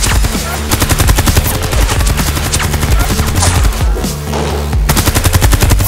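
Background music with a heavy bass line, over fast, rapid-fire rattling clatter like a stream of gunshots.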